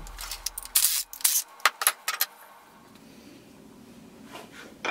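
Paper-and-card boat model handled on a wooden workbench: a quick run of sharp rustles and taps over the first two seconds, then a few lighter rustles and a single tap near the end. Background music fades out at the start.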